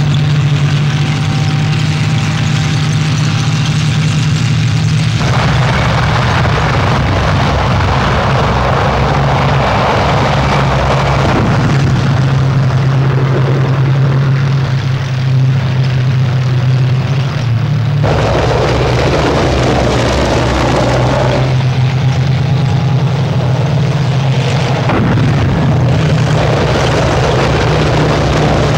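Tank engines and tracks running, with a steady low drone under a rough, noisy rumble. The sound changes abruptly several times as the shots cut.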